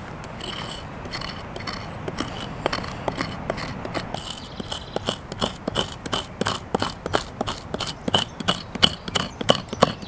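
Knife blade scraping the charred top of a tree stump in short repeated strokes, growing quicker and louder toward the end, scraping away burnt wood down to the unburnt wood beneath.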